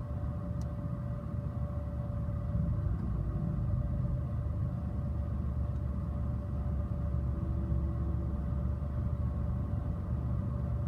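Nankai electric train rumbling past a level crossing: a steady low rumble under a constant hum, swelling slightly a few seconds in.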